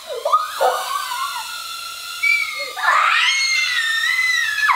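Young children screaming and squealing with excitement, long high-pitched cries that get louder in the second half, over the whine of a small toy quadcopter drone flying.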